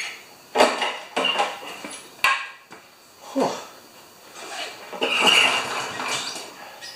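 Honda HRA214 lawn mower's single-cylinder engine being cranked just after priming, giving several sharp irregular bursts and a longer ragged stretch near the end instead of settling into a steady run. It won't start without priming, which the owner takes for a plugged carburettor idle circuit.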